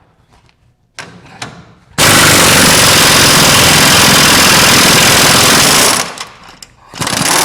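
Pneumatic impact wrench hammering on a front leaf-spring bolt, in one loud run of about four seconds after a brief blip about a second in; another burst starts near the end.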